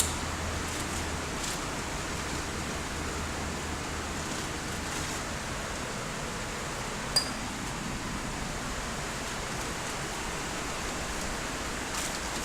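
Steady hiss of background noise, with a low hum that fades out after the first few seconds. About seven seconds in there is one sharp metallic clink with a brief high ring.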